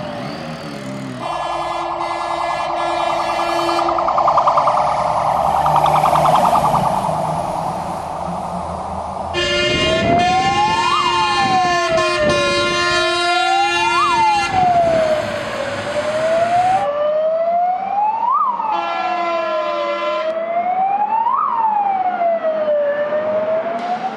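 Scania fire engine's siren wailing, rising and falling about every three seconds, with long steady blasts of its horn sounding over it three times. A loud rushing noise of the truck passing close runs for several seconds in the first half.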